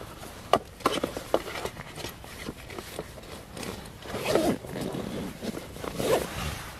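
A zip being worked, with gear and clothing rustling and scraping and a few sharp clicks and knocks about a second in.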